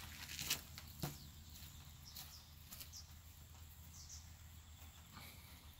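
Quiet outdoor ambience: a steady low rumble, two short sharp knocks about half a second and a second in, and a few faint, short high chirps.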